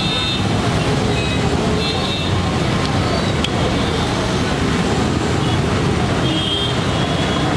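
Steady street traffic noise, a dense even hum of passing vehicles.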